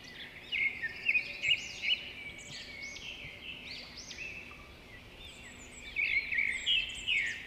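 Eurasian bullfinch fledgling begging to be fed by an adult male: rapid, repeated high chirps, coming in thicker, louder runs near the start and again near the end.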